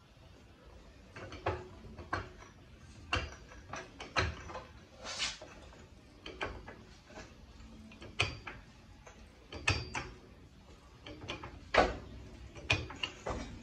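Scattered metal clinks and knocks, about a dozen at irregular intervals, a few with a short ring, as the lower control arm, ball joint and coil spring of a 1968 Firebird front suspension are handled and positioned by hand.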